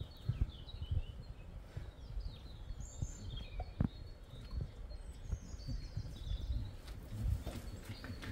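Wild birds chirping and singing, with a low irregular buffeting on the microphone underneath.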